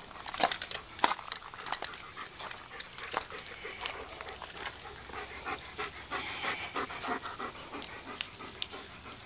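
German Shepherd dog panting, with scattered sharp clicks and knocks, the loudest about a second in.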